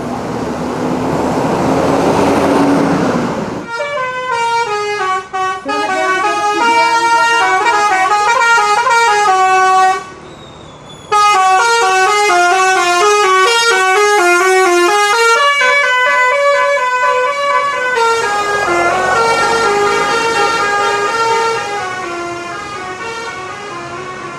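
Indonesian bus 'telolet' horns, multi-tone horns playing a stepping, tune-like melody over and over. The melody stops briefly about ten seconds in and is fainter near the end. The first few seconds, before the horns start, are a loud noisy rush.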